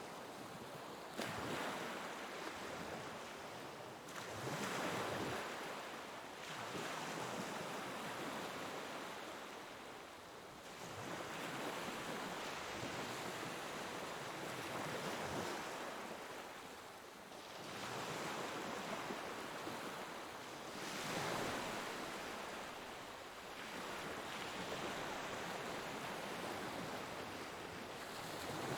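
Ocean waves breaking and washing in, the surge rising and falling every few seconds, with some wind.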